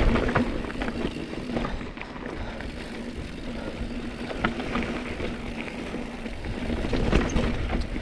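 Bicycle being ridden along a trail: steady tyre and rolling noise with wind rumble on the microphone and scattered clicks and rattles. It is loudest at the start and eases after a couple of seconds.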